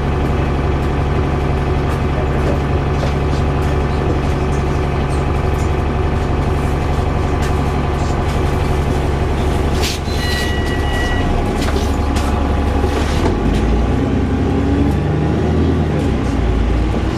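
VDL DB300 double-decker bus running, heard on board as a steady loud engine drone and whir. A short electronic beep sounds about ten seconds in. The engine pitch shifts and steps near the end, as it changes speed.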